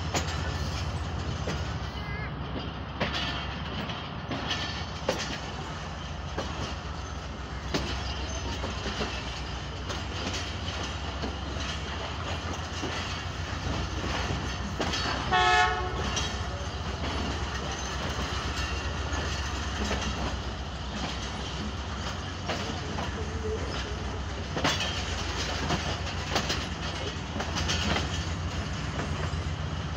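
Passenger train coasting in on arrival, heard from a coach window: a steady low rumble with scattered sharp clacks of the wheels over rail joints and yard points. About halfway through, a short locomotive horn blast, the loudest sound.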